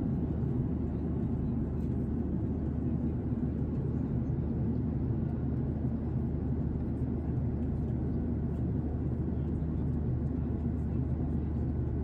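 Steady low rumble inside the cabin of a Boeing 737-800 in flight: engine and airflow noise at an even level.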